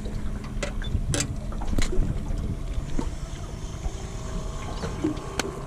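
Wind on the microphone and a low rumble from a small aluminium boat drifting on open water, with a few sharp knocks of gear in the boat.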